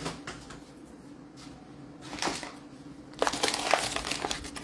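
Crinkling and crunching of a bag of sugar being handled and scooped, with a short rustle about two seconds in and denser crinkling from about three seconds in.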